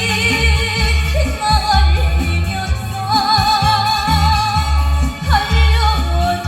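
Live music played loud through a PA: a singer holds long notes with wide vibrato over a backing track with a heavy bass beat.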